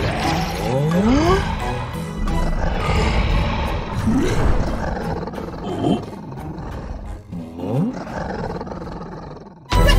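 Animated cartoon soundtrack: music with roaring creature sounds and a few short rising cries. Near the end it breaks off abruptly into a louder passage.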